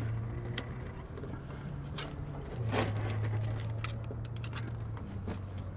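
Steel V-bar tire chain links clinking and jangling as the chain and its hook are handled around a tire, with one louder clink a little before the middle, over a steady low hum.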